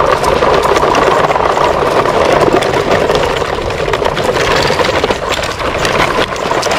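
Plastic toy trucks and loaded trailers rolling over a rough concrete path: a steady grinding rumble of hard plastic wheels, with many small rattles from the toy cars piled in the trailers.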